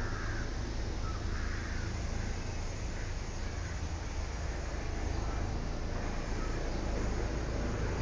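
A few faint crow caws over a steady low background rumble.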